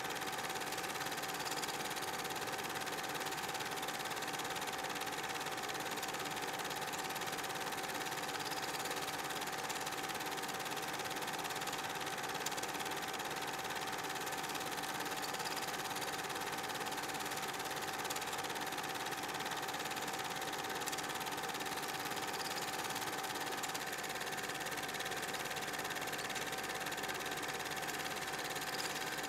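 Super 8 film projector running steadily, its mechanism giving a constant hum with a fine rattle underneath.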